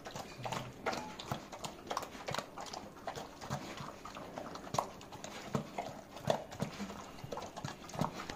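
Doberman puppy eating from a hand-held stainless steel bowl: irregular smacks and clicks of chewing and licking, with its mouth knocking against the metal bowl.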